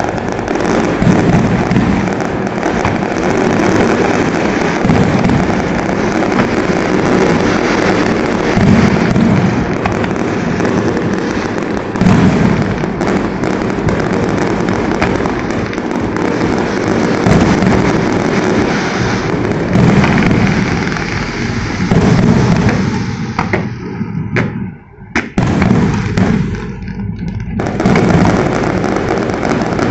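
Fireworks going off in a dense, continuous barrage of bangs and crackling. The sound briefly drops away about 25 seconds in.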